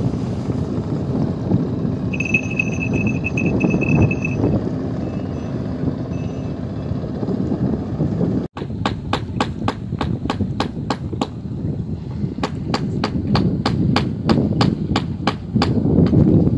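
Wind buffeting the microphone over open water, with a motorboat going by. A thin high tone sounds for about two seconds, a couple of seconds in. After a brief cut partway through, a rapid, regular ticking runs at about four ticks a second.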